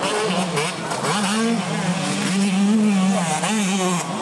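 Enduro dirt bike engine revving unevenly, its pitch rising and falling as the throttle is worked, while the bike is stuck in deep mud.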